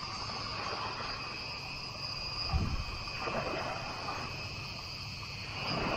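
A steady, high-pitched chorus of insects shrilling without a break, with a few soft low thumps in the middle.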